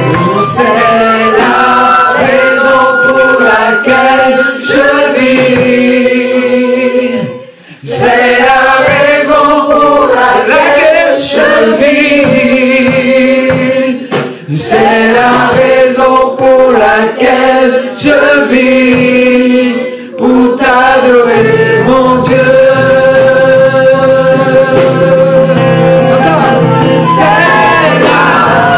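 Gospel worship song sung by a group of voices, led by a man at the microphone, with electric guitar accompaniment. The singing breaks off briefly about seven seconds in, then carries on.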